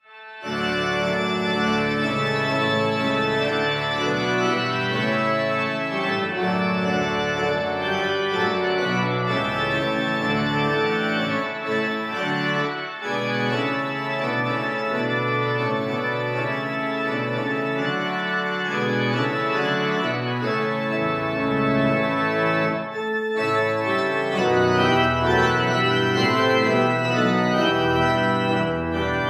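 1979 Austin pipe organ playing a piece with many stops drawn: full, sustained chords that stop briefly twice between phrases.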